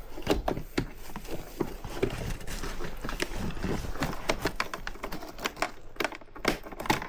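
Irregular clicks, taps and light knocks of hands working on a snowmobile's wiring and fuse panel, plastic and small parts being handled.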